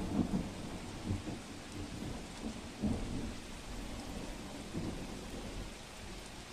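Steady outdoor noise of rain, with irregular low rumbles swelling every second or two.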